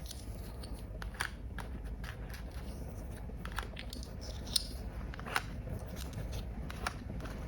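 Scattered light clicks and taps of small plastic toy pieces being handled, over a faint low hum.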